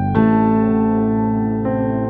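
Background music of slow, sustained chords, with a new chord coming in just after the start and another near the end.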